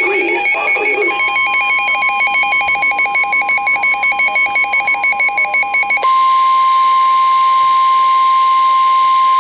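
NOAA Weather Radio alert signal: electronic tones warble and pulse rapidly for about six seconds, with a steady tone near 1 kHz coming in about a second in. The pulsing then stops and the steady warning alarm tone carries on alone. This tone marks a warning broadcast that is about to be read.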